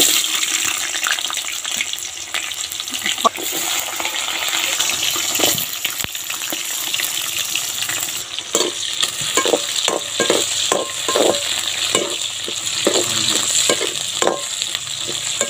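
Chopped onions and whole spices sizzling steadily in hot oil in a metal pan. From about eight seconds in, a slotted metal ladle scrapes and knocks against the pan in quick repeated strokes as they are stirred.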